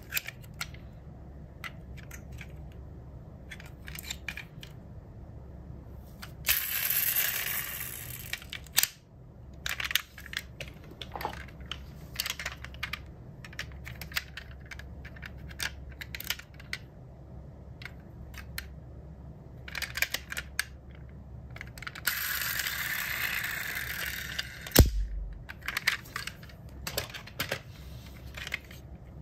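Diecast metal model cars handled in the hands: many small clicks and taps as their opening doors are worked and the cars knock against each other. There are two rasping stretches of about two seconds each, and one sharp knock with a thud about 25 seconds in as a car is set down.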